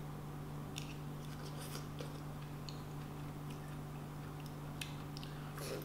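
Chewing a spoonful of soft, juicy pink-fleshed dragon fruit: a few small wet mouth clicks scattered through, over a steady low hum.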